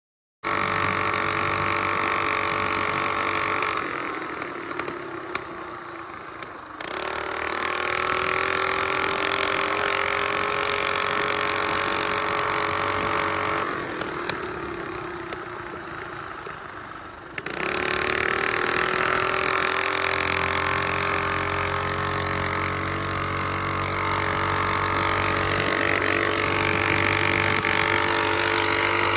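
Mini bike's Predator single-cylinder four-stroke engine running hard at high revs. Twice the throttle comes off, about four seconds in and again at about fourteen seconds, and the engine gets quieter as its pitch sags. Each time it comes back on suddenly and the engine climbs in pitch again.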